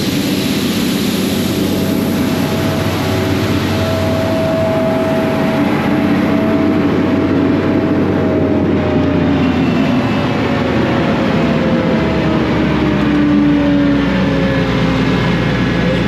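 John Deere combine harvester running steadily, a continuous machine hum with a few whining tones, one of which slowly drifts down in pitch in the second half.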